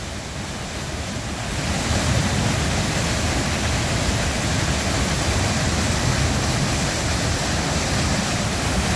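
Waterfall in heavy flow: a steady, full rush of white water pouring over a rock ledge and crashing into the pool below, growing louder about a second and a half in and then holding.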